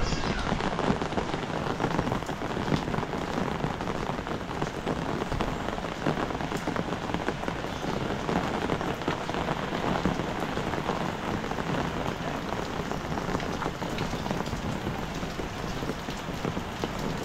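Heavy rain falling steadily: a dense, even hiss of drops flecked with many small ticks and splashes.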